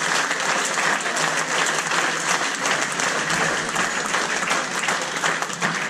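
Spectators applauding with sustained, dense clapping that dies away right at the end.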